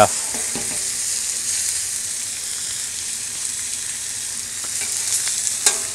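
Thin steaks sizzling in melting butter on the steel top of a Blackstone 36-inch propane griddle, a steady hiss. A couple of sharp clicks near the end.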